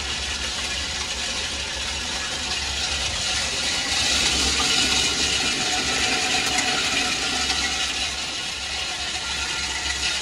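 Industrial snail-tail cutting machine running, its motor humming steadily while it cuts the snails inside. The noise rises a little for a couple of seconds in the middle.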